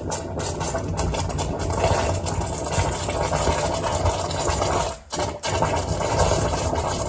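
Momar sulfuric-acid drain cleaner going into the standing water of a blocked shower drain, reacting with a loud, rumbling fizz and gurgle. It breaks off for a moment about five seconds in, then starts again.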